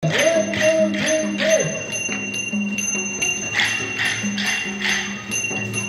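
Traditional Newar dance music: a barrel drum and cymbals beat a steady rhythm of about two strikes a second, with the metal ringing on between strikes and a wavering melodic line above.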